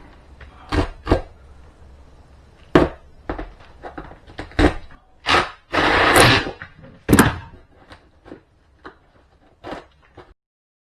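Sharp knocks and thuds of hand work on the RV's wooden wall paneling, about nine in an irregular run, with a longer scraping crunch about six seconds in. The sound cuts off abruptly just after ten seconds in.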